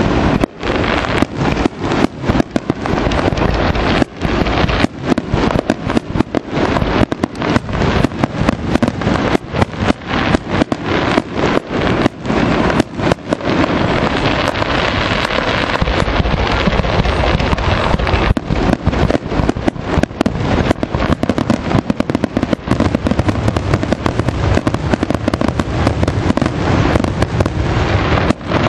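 Aerial fireworks shells bursting in rapid succession, several bangs a second, thickening about halfway through into an almost unbroken barrage: the display's finale.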